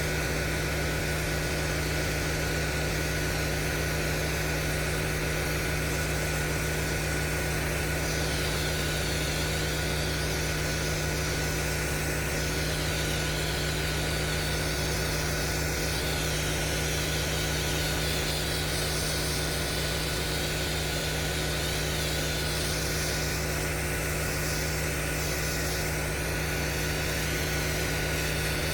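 Pressure washer engine running steadily under load, with the hiss of high-pressure water spraying on concrete that swells and shifts as the spray moves.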